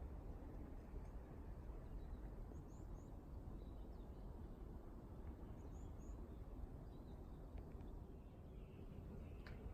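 Quiet outdoor ambience: a steady low rumble, with faint high chirps in two quick pairs about three and six seconds in. No chime melody is playing.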